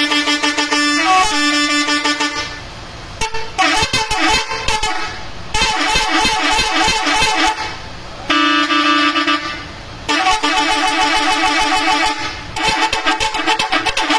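Indonesian bus "telolet" musical air horns playing quick multi-note tooting tunes, in about six bursts of one to three seconds each with short pauses between.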